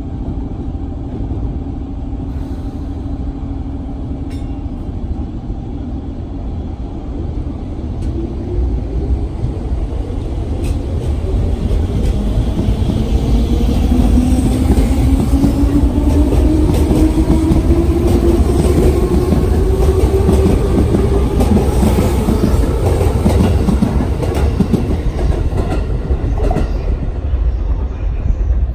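Electric train pulling away from the platform: its traction motors give a whine that rises steadily in pitch as it accelerates, over a low running rumble. The sound grows loudest about halfway through and eases slightly near the end.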